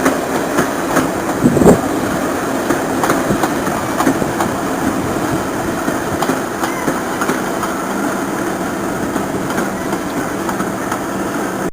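Steam railway train running along the track: a steady rumble with irregular clicks and knocks, one louder knock about a second and a half in.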